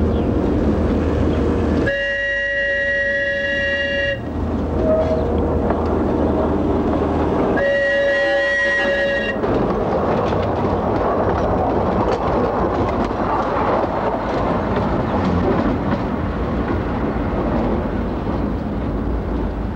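Train horn sounding twice, each blast held for about two seconds, over the steady rumble of a train. From about halfway through comes the louder rumble and clatter of the train rolling past.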